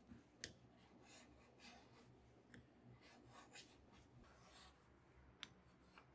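Near silence with faint, irregular scraping strokes on wood, each short, about once every half second to a second.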